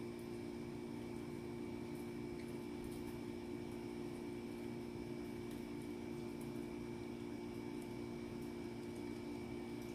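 A steady electrical hum with several fixed tones, unchanged throughout. Faint scattered small clicks come from a small dog licking and chewing a treat on a tile floor.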